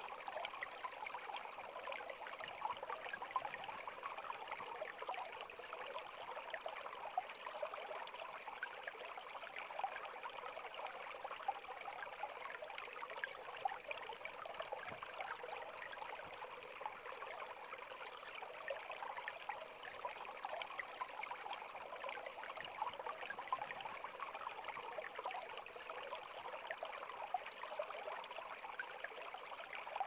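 Small rocky stream trickling and burbling steadily over stones, a busy, even run of water with many small splashes.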